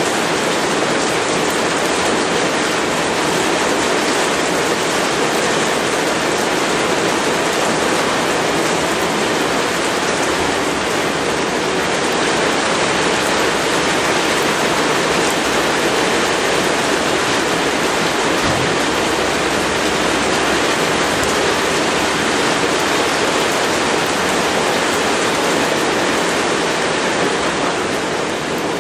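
Steady rain falling: an even, unbroken hiss of water.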